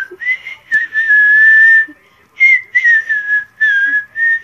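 A girl whistling through puckered lips, a breathy single tone: a short note, one long held note of about a second, then a string of short notes that waver and dip slightly in pitch.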